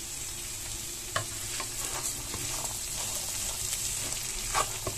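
Black beans frying in coconut oil with garlic and leek, a steady sizzle. A few light knocks about a second in and near the end.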